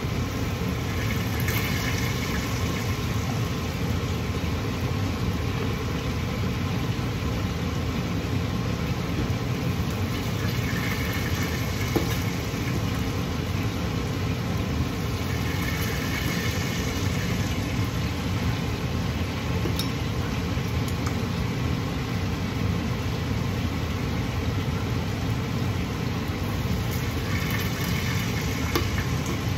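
Steady, even hum of a kitchen range hood exhaust fan running. Now and then a brief soft rustle as chopped vegetables are tipped into a steel pot.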